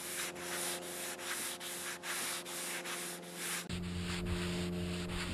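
Hand sanding block rubbed back and forth over wooden boards, about three strokes a second. A steady low hum joins about two-thirds of the way through.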